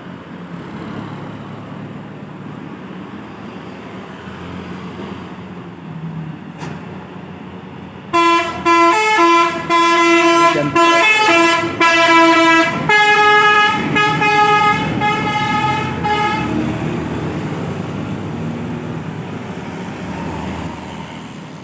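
Tour bus engine running as the bus comes along the road, then about eight seconds in its Basuri V3 telolet horn plays a loud multi-note melody for about eight seconds before the engine sound carries on.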